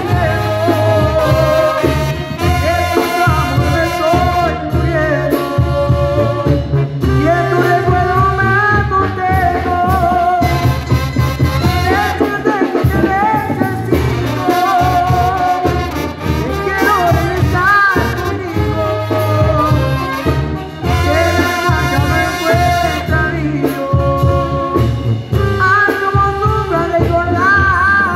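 A Sinaloa-style banda playing an instrumental passage live: trumpets carry the melody over a deep tuba bass line and a steady drum beat.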